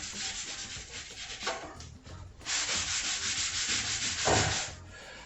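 Wet rag rubbing glue squeeze-out off pine plywood in quick back-and-forth strokes, with a short pause about two seconds in.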